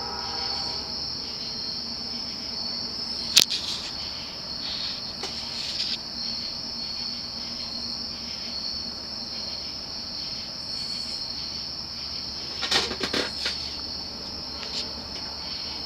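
Steady high-pitched insect chirring, with a few sharp clicks about three seconds in and a cluster of clicks near the end.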